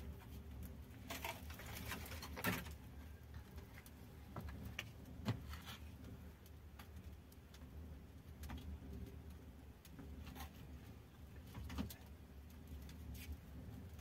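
Dry firewood branches being snapped by hand and fed into a clay tandoor oven: a few sharp cracks several seconds apart over a low steady hum.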